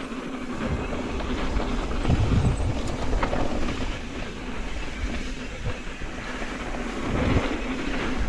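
Mountain bike riding fast down a dirt trail: knobby tyres rolling on packed earth and the chain and frame rattling over bumps, with wind on the microphone. The low rumble swells about two seconds in and again near the end.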